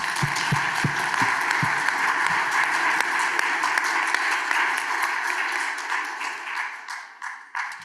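Audience applauding: a dense spread of many hands clapping, with a few heavier thuds in the first couple of seconds, dying away near the end.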